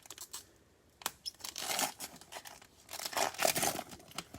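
A baseball card pack wrapper being torn open and crinkled by hand, with a sharp click about a second in and two stretches of rustling crinkle.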